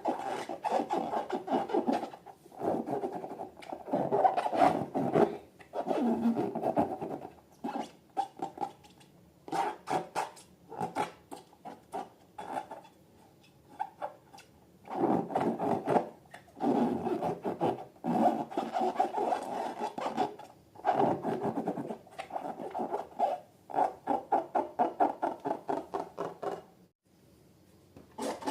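Slime and balloons being worked by hand: repeated rubbing and scraping in bursts of quick strokes, each burst lasting a few seconds with short pauses between.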